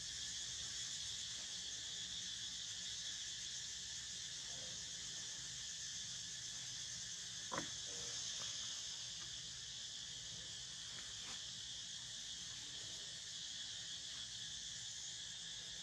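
A steady, high-pitched chorus of insects in the background, with one sharp knock about halfway through.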